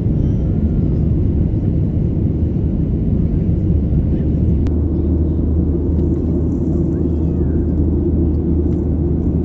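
Steady low drone inside a jet airliner's cabin as it climbs after takeoff: engine and airflow noise heard from a window seat over the wing.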